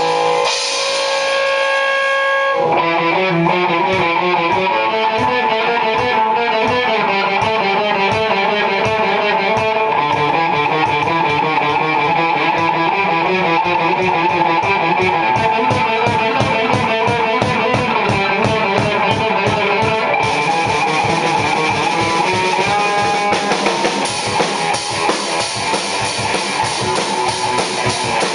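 Loud rock music with electric guitar and a steady drum beat; the drums come in about two and a half seconds in.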